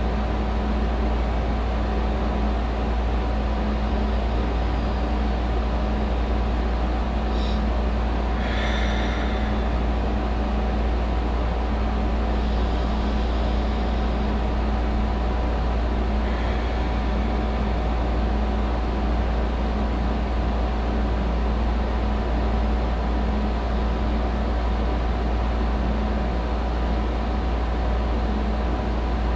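Steady low hum at an even level, with faint steady tones above it, and a few brief faint high chirps about 8 to 9 seconds in and again around 13 and 16 seconds in.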